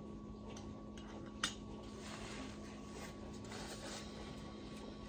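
Quiet room with a steady low hum; a single light click about a second and a half in, then faint rustling of a paper towel wiping a plastic funnel on a glass bottle.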